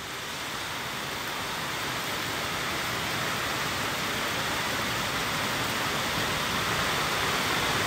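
Heavy hailstorm with rain, hail coming down hard on pavement: a dense, steady rush that slowly grows louder.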